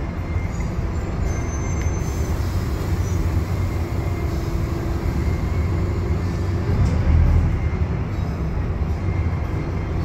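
Scania K310UB city bus's rear-mounted diesel engine running as the bus drives, heard from inside the passenger saloon as a steady low drone with a faint whine. The noise swells briefly about seven seconds in.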